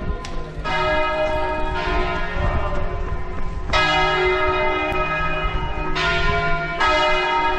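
Church bells ringing, struck about five times at uneven intervals, each stroke ringing on into the next.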